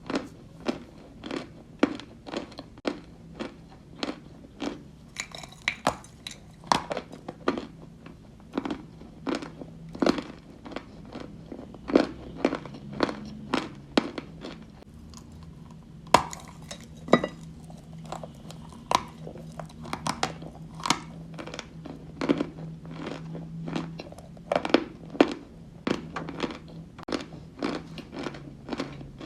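Close-up chewing of white Turkestan eating chalk: crisp crunches, about two a second, as the chalk is bitten and ground between the teeth.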